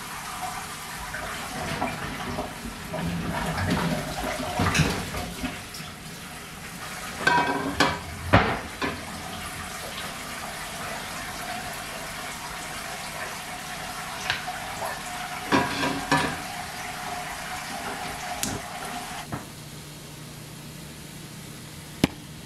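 Kitchen tap running into a sink while dishes and pans are washed, with clattering knocks now and then. The running water stops about nineteen seconds in, leaving a quieter low hum.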